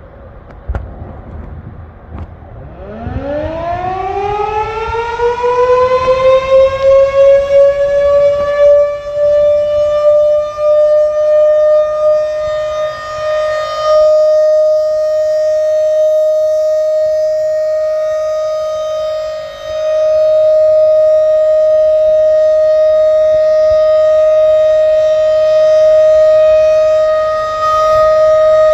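Federal Signal 2001 electromechanical tornado siren winding up about three seconds in, its pitch climbing and levelling off into one loud, steady tone that holds for some twenty seconds. The tone begins to wind down at the very end. This is a routine weekly siren test.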